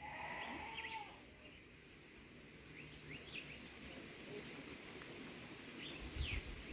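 Faint outdoor farm ambience with scattered short bird chirps. A brief call comes right at the start, and a low rumble builds near the end.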